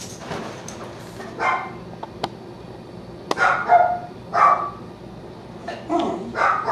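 A dog barking, about five short single barks spaced roughly a second apart.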